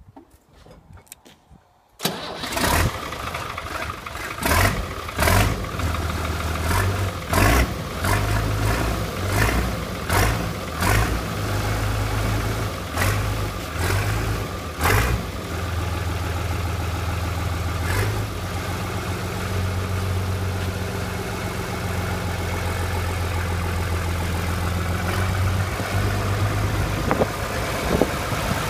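Fiat 100-90 farm tractor's diesel engine starting about two seconds in, then running with repeated sharp knocks through the first half before settling into a steady idle.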